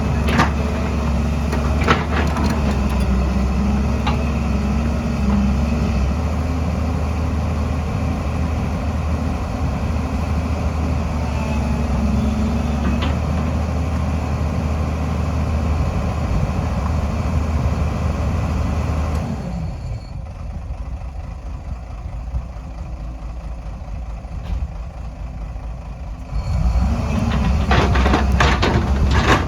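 Hydraulic excavator's diesel engine running steadily, with a few sharp knocks near the start and again near the end. About two-thirds through, the engine sound drops quieter for several seconds, then comes back up.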